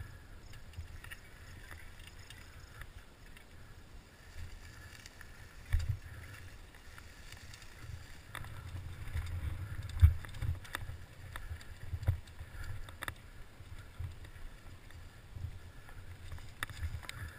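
Giant Faith 2 downhill mountain bike rolling fast over rough, rocky dirt, heard through a GoPro's waterproof housing: a steady low rumble of tyres and frame vibration with several sharp knocks from bumps, the loudest about ten seconds in.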